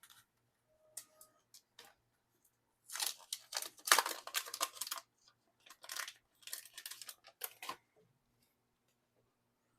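Packaging being torn open and crinkled by hand in two spells of rustling tearing, the first about three seconds in and the second about six seconds in, then the handling goes quiet.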